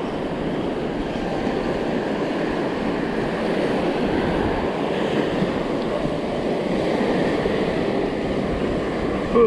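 Surf washing up on the beach, with a steady wind rumble on the microphone.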